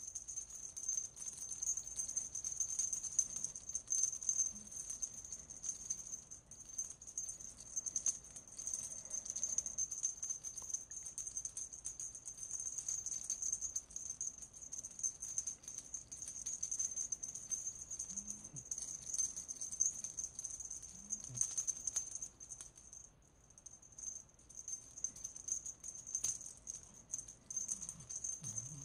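Small metal jingle bell on a feather cat-teaser wand, jingling and rattling continuously as the wand is shaken, with a steady high ring.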